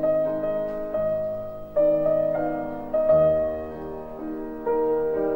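Background piano music playing slow, sustained notes and chords, a new one struck about once a second.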